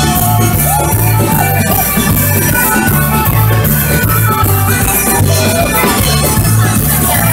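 Amplified live music from a folk band, with a drum kit and bass keeping a steady beat under a melody.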